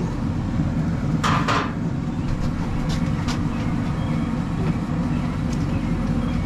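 An engine idling steadily, with two short clattering noises a little over a second in.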